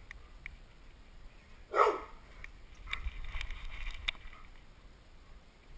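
Handling noise from a camera strapped to a moving dog: low rumble with scattered clicks and rustling, busiest between about three and four seconds in. About two seconds in comes one short, sharp sound whose pitch falls, the loudest moment.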